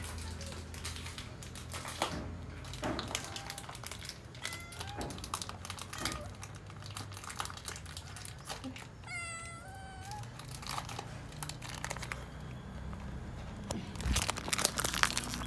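A domestic cat meows once, a short call about nine seconds in, over near-constant faint crackling and rustling; louder crackles and knocks come near the end.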